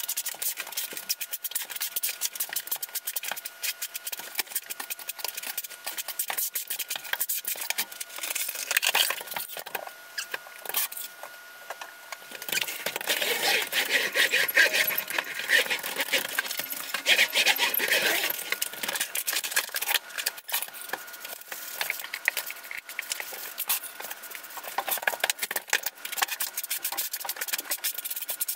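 Sped-up tile-setting work sounds: rapid scraping and tapping of a trowel working thinset. For several seconds in the middle, a paddle mixer churns thinset in a bucket, louder and fuller.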